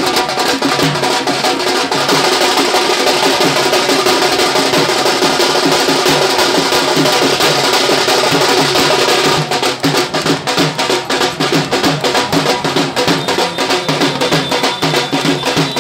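Loud music driven by fast, dense drumming over a high, shimmering wash; the wash thins out about nine and a half seconds in.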